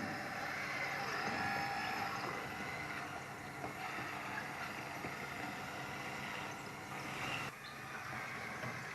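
Electric hydraulic pump and drive motors of a Kabolite radio-controlled hydraulic construction model whining as it works, the pitch rising and falling with the load, with a sudden drop in level about seven and a half seconds in.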